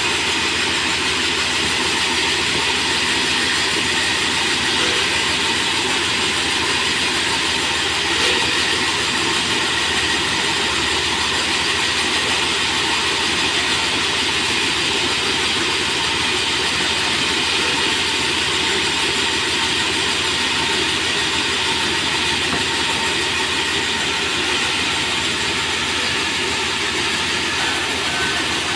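Large sawmill band saw running and ripping merbau hardwood planks: a loud, steady hiss of sawing and machinery with a few held tones, without a break.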